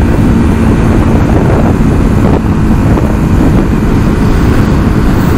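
Loud, steady rush of wind buffeting the microphone, with the road and engine noise of the moving vehicle underneath.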